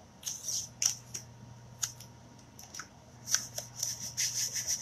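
Short scratchy strokes of a hand smoothing an adhesive chalk transfer flat against glass. They are scattered at first, then come quickly one after another from about three seconds in.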